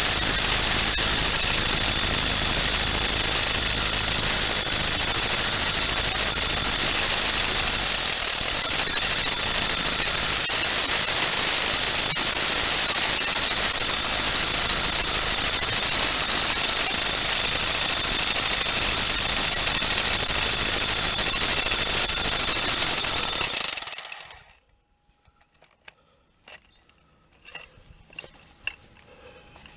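Rotary hammer drilling with a long masonry bit through stone facing into a poured concrete foundation, running steadily for a long stretch and then stopping suddenly. A few faint scattered clicks follow.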